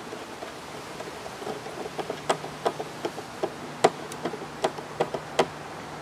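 Hand screwdriver driving a metal screw through a mounting clip into a plastic electronics enclosure: a run of sharp, irregular clicks, about three or four a second, starting about a second and a half in.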